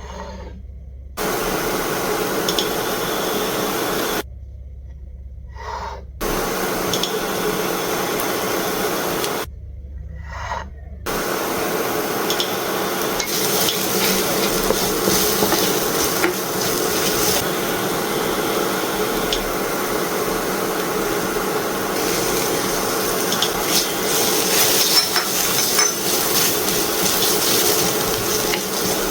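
Food sizzling in oil in a hot pan, with a few light ticks. The sizzle cuts out briefly twice, about 4 and 9.5 seconds in, leaving a low hum.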